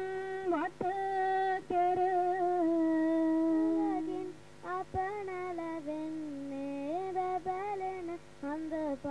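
A single voice singing unaccompanied, holding long notes that slide from one pitch to the next, with short breaks between phrases.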